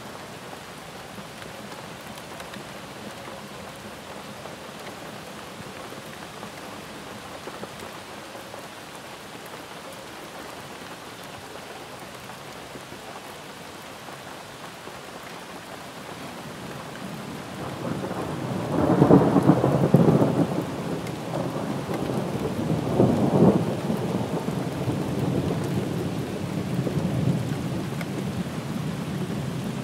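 Steady rainfall, with a rumble of thunder rising a little past halfway that peaks twice, then rolls on more softly under the rain.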